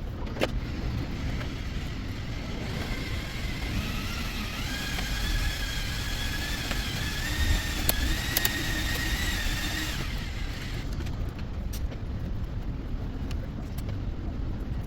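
A small motor whines for about eight seconds, stepping up in pitch once and then holding steady before it cuts off, over a steady low rumble with a few sharp clicks.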